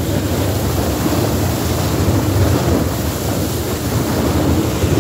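Steady wind buffeting the microphone on the open deck of a moving sightseeing boat, mixed with the rush of water and a low rumble from the boat.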